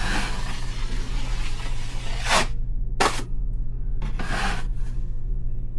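Drywall knife scraping joint compound across the wall while laying a base coat over a patch: one long stroke of about two and a half seconds, then two short swipes, over a steady low hum.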